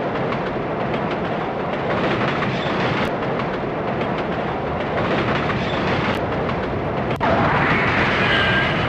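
Train running on the rails, a steady rumble. About seven seconds in it gets louder and a high metallic squeal starts over it.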